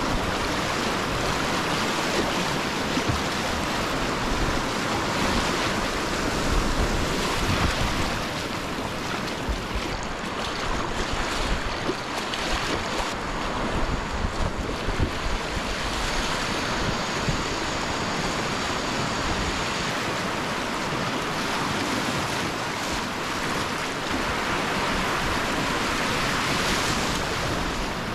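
Rushing whitewater of a river rapid, steady and loud, with splashes from kayak paddle strokes and wind buffeting the camera microphone.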